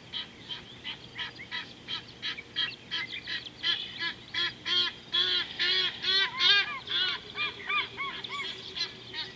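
A bird calling in a long series of short honking notes, each rising and falling in pitch, about three a second, growing louder towards the middle and easing off near the end.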